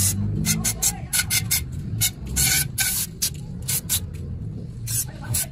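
Aerosol can of Hardex cleaner spraying in many quick short hissing bursts, about three or four a second, into the carbon-fouled idle air control valve port of a Nissan SR20DE intake manifold.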